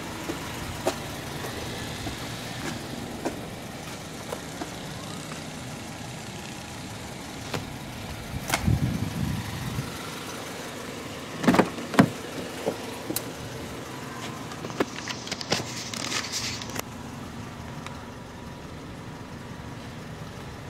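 2005 Toyota Corolla LE's 1.8-litre four-cylinder engine idling steadily. A few sharp knocks and clicks sound around the middle, the two loudest close together a little past halfway, then a brief rustle.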